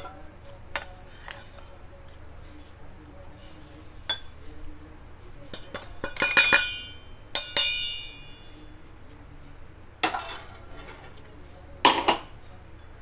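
Steel mixer-grinder jar clinking against a glass bowl as ground red chilli flakes are tapped out of it: a cluster of ringing clinks about six seconds in and another about a second later, then two short clatters near the end.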